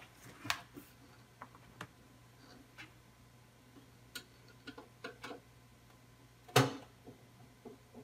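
Light clicks and taps of a screwdriver and screws against the metal case of a Pioneer CD recorder as the back-panel screws are taken out. One louder knock comes about six and a half seconds in.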